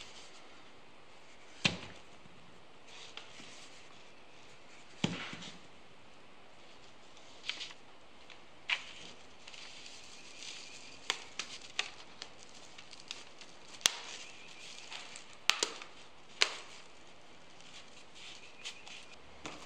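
Small wooden segments of walnut and laminated skateboard plywood clicking and knocking as they are set into a ring and clamped with rubber bands. About a dozen scattered sharp clicks, the loudest ones clustered in the second half.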